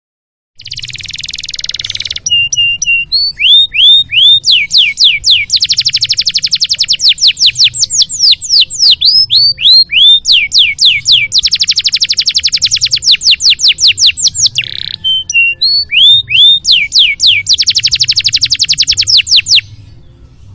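Domestic canary singing a long song: it opens with a harsh buzzing note, then runs through repeated short notes and three long, very rapid trills of downward-sweeping notes, stopping about a second before the end. A low hum lies underneath.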